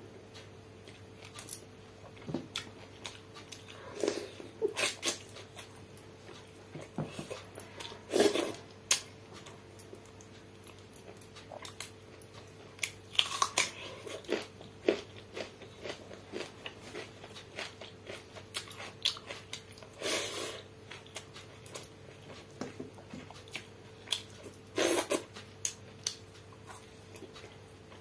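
Close-miked eating by hand: chewing and biting on country chicken and mouthfuls of fermented water rice, with many small wet clicks and a few louder mouth sounds every few seconds. A faint steady hum runs underneath.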